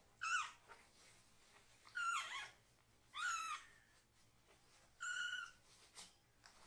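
Very young kitten meowing loudly four times, high-pitched cries about half a second each, some falling in pitch at the end. They are protest cries at having its bottom washed and being towelled. A small click comes near the end.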